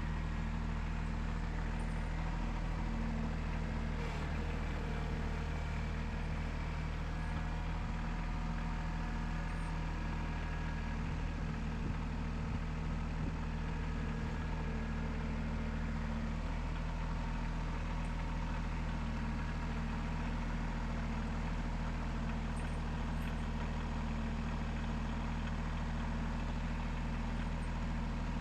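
Engine of a Cooks 3238 hydraulic sawmill idling steadily, with a couple of faint knocks.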